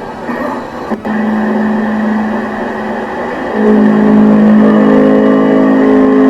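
Sustained electronic chord of steady held tones, with a click about a second in, then a louder, fuller chord from about three and a half seconds in.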